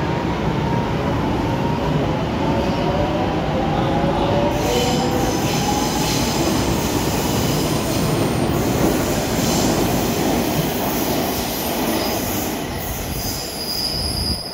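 ATM 900-series Meneghino metro train accelerating away from a station, its traction motors whining and rising in pitch over the first several seconds. The whine rides over a steady loud rumble of wheels on rail, which eases near the end, when a high squeal is heard.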